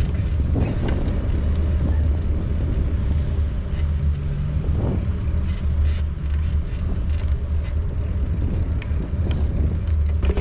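Steady low wind rumble on a handlebar-mounted camera's microphone as a bicycle rolls along a paved path.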